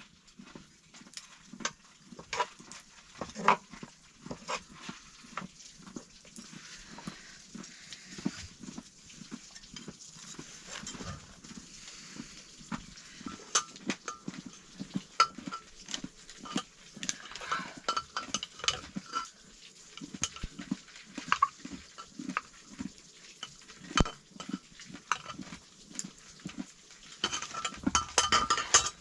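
Eating sounds: a spoon clicking and scraping on a metal plate, with many short clicks and quick repeated chewing-like pulses.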